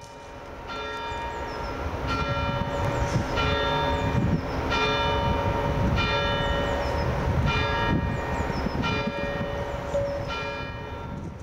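Bells ringing in a steady sequence, each stroke a different pitch and coming about every second and a third, over a low rumble.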